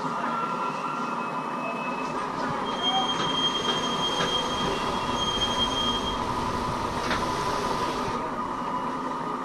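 Stainless-steel passenger carriages of the Great Southern train rolling slowly past on the rails, with steady running noise. From about three seconds in, thin high metallic squeals from the running gear come and go, and a few sharp clicks can be heard.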